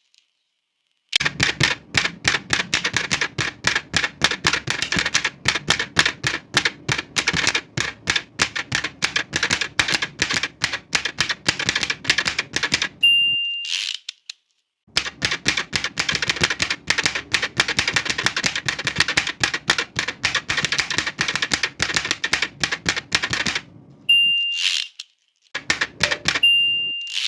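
Old manual typewriter typed rapidly in two long runs of key strikes. Each run ends with the margin bell's single ding and the carriage being returned. Another ding and carriage return come near the end.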